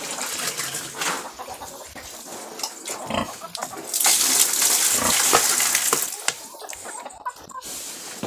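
Pigs grunting in their pen. About four seconds in, water is poured from a plastic bag into the pen for a sow, making a loud splashing hiss that lasts about two seconds.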